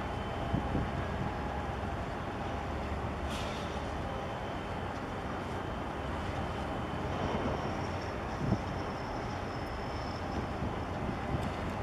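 Steady low rumble from a large cargo ship's engine as the ship passes close by, with one short knock about eight and a half seconds in.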